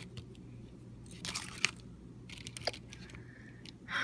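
Scattered small clicks and a short crunchy rustle about a second and a half in, over a steady low hum.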